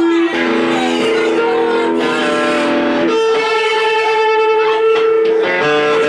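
Electric guitar played through an amplifier: a slow run of single held notes, with one long note in the middle shaken with vibrato.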